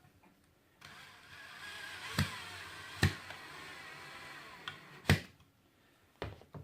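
Power drill-driver running for about four seconds as it drives a pocket-hole screw, its motor pitch wavering under load. Sharp knocks fall during the run, and the loudest comes just after the motor stops.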